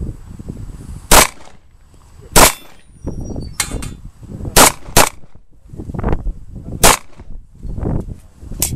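Handgun fired in single shots at an uneven pace, about eight in all: some a second or more apart, others in quick pairs, with two quieter cracks close together about three and a half seconds in.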